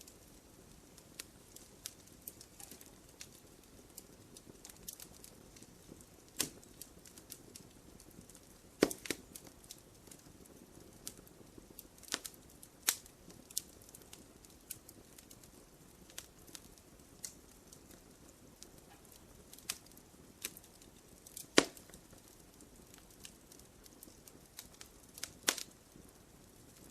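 Wood fire crackling in a fireplace: irregular sharp pops and snaps over a faint low hiss, with a few louder pops scattered through.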